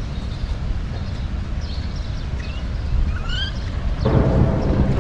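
Steady low rumble of wind on the microphone, with a few short rising bird chirps in the middle; the rush grows louder about four seconds in.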